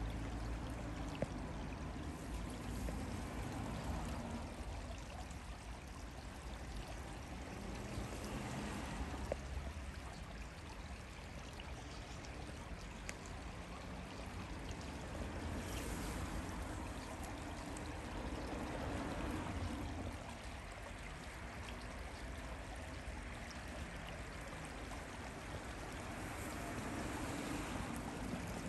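Steady outdoor rushing noise, heaviest in the low end, swelling and easing every few seconds.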